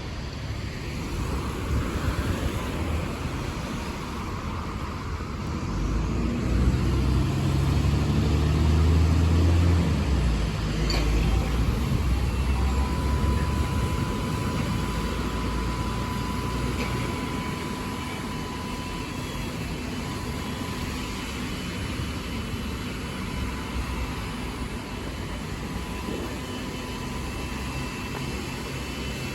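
A bus engine running close by, louder for a few seconds about a quarter of the way in and then easing away, over steady road traffic noise.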